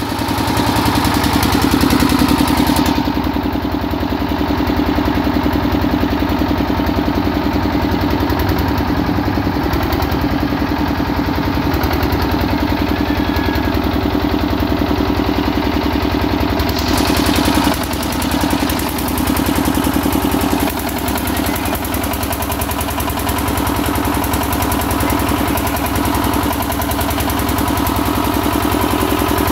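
Fieldmarshal 7.5 kVA generator set's single-cylinder diesel engine running steadily at constant speed, a rapid even beat of firing strokes.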